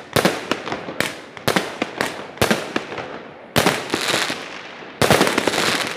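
80-shot firework cake firing in quick succession: sharp bangs of shots and shell bursts about twice a second, then two louder bursts about three and a half and five seconds in, each trailing into roughly a second of crackling.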